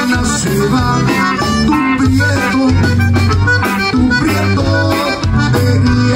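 Live conjunto band playing with the accordion leading, over guitar, electric bass and a drum kit keeping a steady beat.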